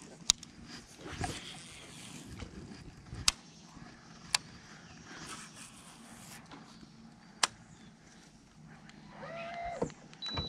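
Sharp, isolated clicks and knocks, four of them a few seconds apart, from fishing tackle being handled in a boat, over a faint steady background. A brief pitched, wavering sound comes near the end.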